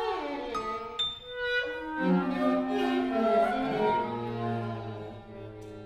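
A contemporary chamber ensemble of flute, clarinet, violin and cello plays live: overlapping sustained notes with sliding pitches. From about four seconds in a long low note is held while the music fades.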